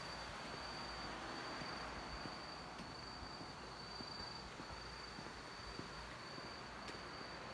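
Night insects, crickets, chirring in one steady high-pitched tone over a soft, even background hiss.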